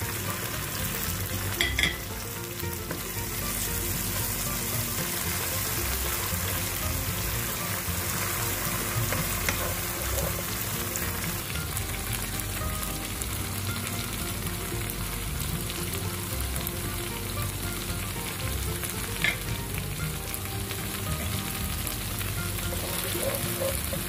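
Chili paste, sliced onion and garlic sizzling in hot oil in a non-stick frying pan while a wooden spatula stirs them. The hiss is steady, with two sharp clicks, one about two seconds in and one later on.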